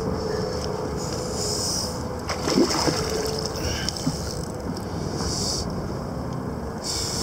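Water lapping and splashing against a small fishing boat, with wind on the microphone and a faint steady hum, and a few short knocks about two to three seconds in.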